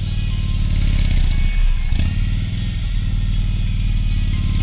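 Motorcycle engine running at low speed, a steady deep pulsing, with a single knock about two seconds in.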